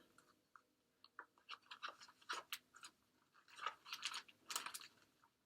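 Faint handling noise: soft, irregular clicks and crackles spread over a few seconds.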